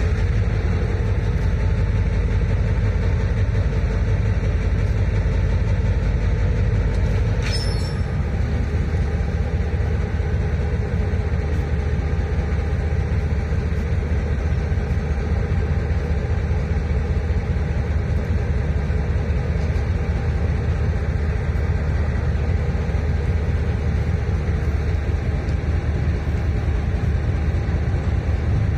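Steady low rumble of a GEU-40 diesel-electric locomotive hauling a passenger train, with faint steady tones above it and a brief click about seven seconds in.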